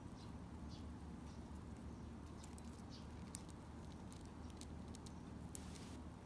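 Rosy-faced lovebird picking at and cracking seeds in a small glass dish: faint, scattered clicks and crackles over a low steady hum.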